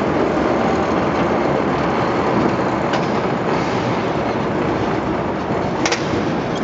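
Railway turntable slowly rotating with a locomotive on it: a steady rumble and grind of the turntable's running gear, with a sharp click about six seconds in.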